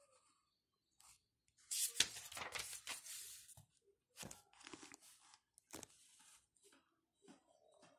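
Paper rustling as a book page is turned, loudest about two seconds in and lasting under two seconds, followed by a few short rustles and soft clicks as the page is handled.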